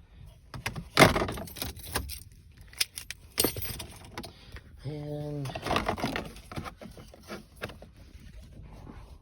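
Plastic interior trim pieces of a car's centre console being handled and pushed into place: a series of sharp clicks and rattles, the loudest about a second in.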